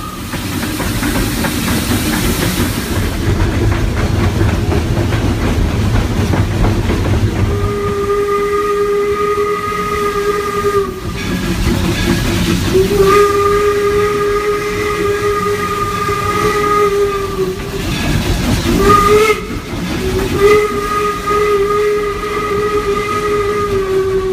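Steam locomotive whistle heard from inside the cab, over a steady hiss of steam. After several seconds of hiss alone come two long blasts, a short one and a long one: the grade-crossing whistle signal.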